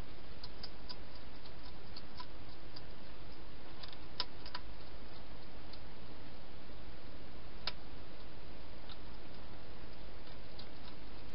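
Wild hedgehog eating from a bowl inside a plastic feeding box: faint, irregular small clicks and crunches over a steady hiss, with two sharper clicks about four and seven and a half seconds in.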